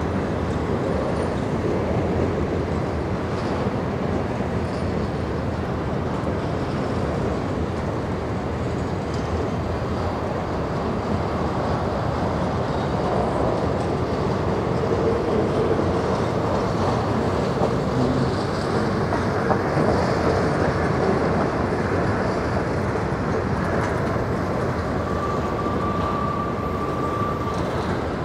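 Empty covered grain hopper wagons rolling past on the rails, a steady rumble of wheels and running gear. A thin, steady high squeal comes in near the end.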